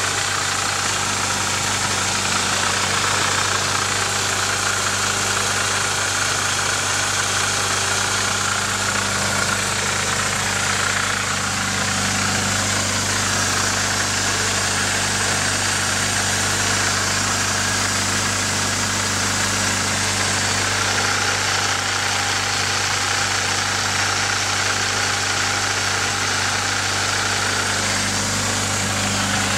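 Nissan 240SX's KA24DE 2.4-litre four-cylinder engine idling steadily, making a noise that the owner suspects is the timing chain.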